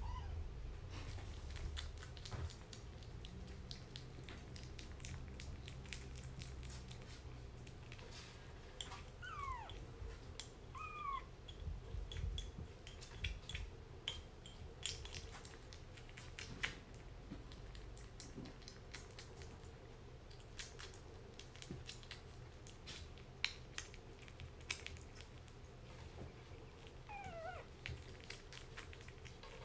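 Kitten eating wet food from a ceramic bowl, with small wet clicks of lapping and chewing and the plastic spoon knocking against the bowl. Short kitten mews break in a couple of times about a third of the way in and once more near the end.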